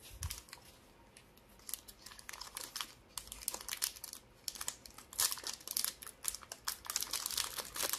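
Plastic-foil trading-card pack wrapper being handled and crinkled by hand, a run of short, irregular crackles that starts about a second and a half in and grows busier toward the end.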